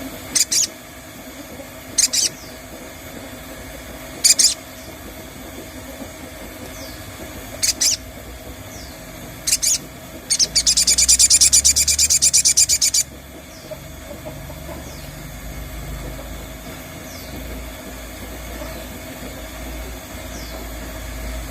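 Crested jay (sogon) calls: five short, sharp high notes a couple of seconds apart, then a fast rattle of about ten notes a second lasting nearly three seconds.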